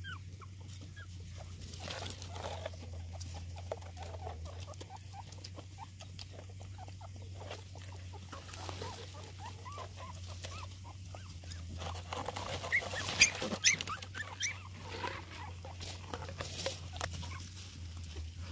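Nursing puppies giving small squeaks and grunts while the mother dog eats from a plastic bowl, with chewing, lapping and patter. A cluster of sharp clicks about twelve to fourteen seconds in is the loudest part.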